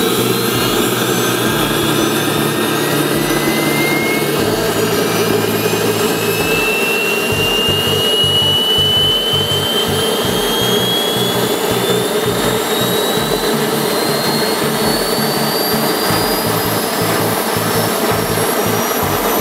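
Armfield CM14 small axial-flow gas turbine jet engine running with a loud, steady roar. Over it a turbine whine rises slowly and evenly in pitch as the engine spools up to higher speed.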